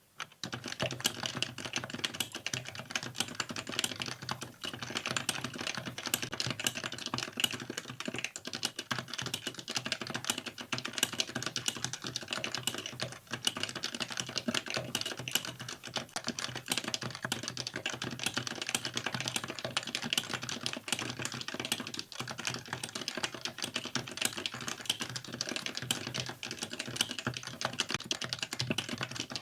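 Stock, unmodified Happy Hacking Keyboard Professional (PD-KB300NL) with Topre capacitive switches being typed on fast, in a dense, continuous stream of keystrokes.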